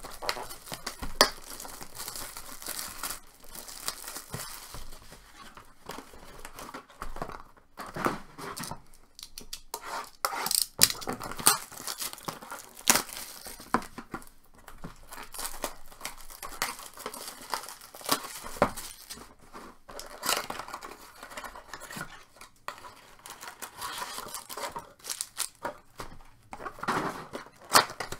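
Baseball trading card packs being torn open by hand: wrappers tearing and crinkling, with irregular short clicks and rustles as the cards are handled.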